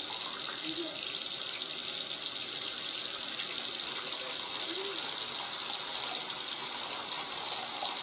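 Faucet running steadily into a sink, a loud even rush of water that stops suddenly near the end.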